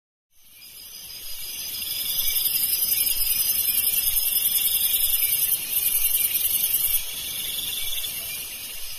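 High-pitched, shrill insect chorus, a dense rapid chirring that fades in over the first two seconds and eases off somewhat about seven seconds in.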